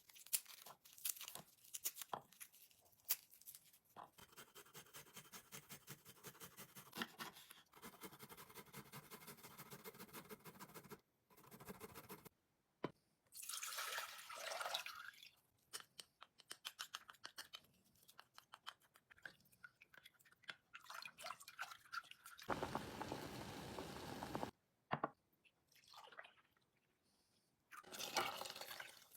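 Close-miked kitchen food-preparation sounds. A fast run of small crunching cuts lasts several seconds, followed by hissing stretches that suggest liquid being poured, and scattered light taps.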